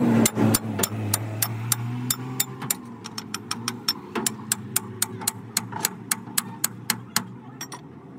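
Hand hammer striking a steel U-bolt on a truck leaf spring pack in quick, even blows, about three to four a second, stopping shortly before the end; the hammering drives the U-bolt down to seat it over the spring leaves. A low hum is heard under the first few seconds and then fades.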